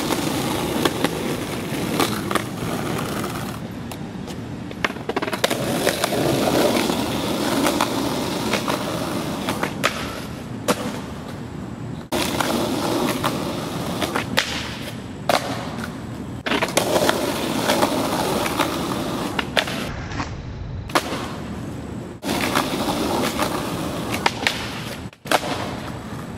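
Skateboard wheels rolling on concrete in a steady rumble, broken by sharp clacks of the board popping and landing. The sound breaks off and starts again abruptly several times between takes.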